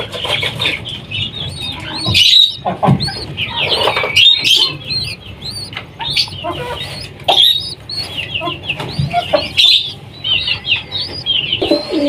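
Small cage birds chirping and chattering in a steady stream of quick, high calls, with a few brief rustles or wing flaps among them.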